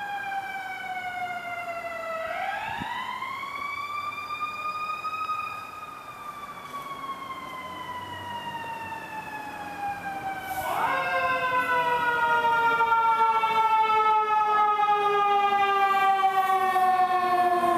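Fire engine siren wailing. Its pitch falls, climbs over a few seconds and then sinks slowly. About ten seconds in it climbs sharply again and grows louder as the vehicle nears.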